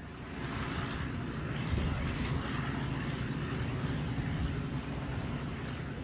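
An engine running steadily with a low hum, under a constant hiss.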